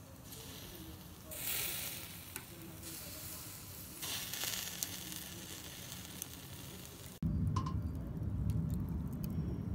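Chicken sizzling in a wire grill basket over hot charcoal: a soft hiss that swells twice, with a few faint crackles. About seven seconds in, the sound cuts abruptly to a louder low rumble.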